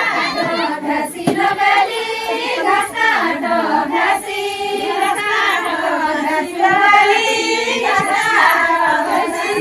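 Many women's voices singing a folk song together in chorus, sung as a group circle dance.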